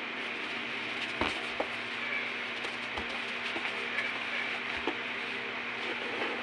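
Plastic wrapping rustling and a few light knocks against a cardboard box as wrapped items are lifted out, over a steady background hiss.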